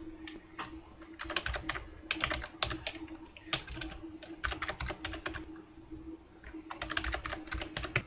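Computer keyboard typing in several short bursts of keystrokes with brief pauses between them.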